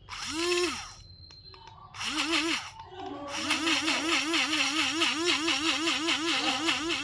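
Small battery-powered mini grinder's electric motor whirring: two short bursts that spin up and die away, then a longer run from about three seconds in whose pitch wavers up and down about four times a second as the blades work through the food.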